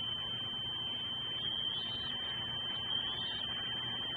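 A steady high-pitched electronic whine over constant hiss, the noise of the nest camera's audio feed, with two faint short sounds about one and a half and three seconds in.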